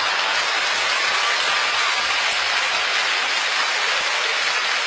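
Large audience applauding steadily after a stand-up punchline.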